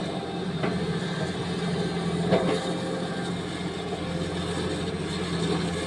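Sany hydraulic excavator's diesel engine running steadily as the machine works on a rock pile, with a short knock about two seconds in.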